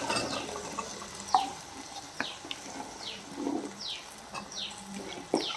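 Fresh green turkey berries tipped into an aluminium pan of frying onion and tomato, pattering in over a sizzle at the start, followed by a few sharp clinks against the pan, the loudest near the end. A bird chirps repeatedly in short falling notes in the background.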